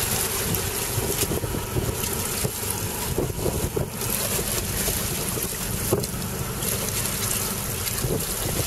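Wind buffeting the microphone on a boat at sea: a steady low rumbling noise with a few brief louder gusts.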